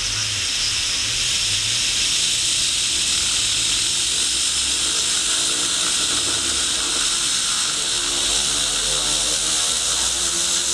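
Compressed air hissing steadily through a flow-control valve into a 3D-printed Tesla turbine, fed from a soda bottle charged to 6 bar. The hiss builds over the first couple of seconds as the valve is opened further, and from about seven seconds in the turbine's whine rises steadily in pitch as it spins up.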